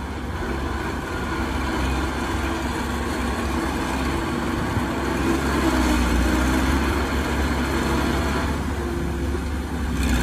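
Heavy diesel engine of earthmoving machinery running steadily, a bit louder after the first couple of seconds.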